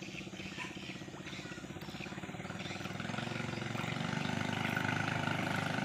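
Small engine of a ces (katinting) longtail racing boat running at speed on the river, its rapid firing pulses growing steadily louder as the boat approaches.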